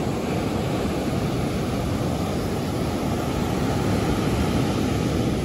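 Steady rush and rumble of ocean surf breaking on a sandy beach.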